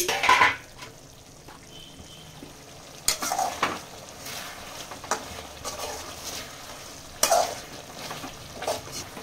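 Metal spatula scraping and clinking against a metal kadai as chicken masala is stirred, in short bursts near the start, about 3 seconds in, about 7 seconds in and near the end. A faint steady sizzle of the frying masala runs underneath.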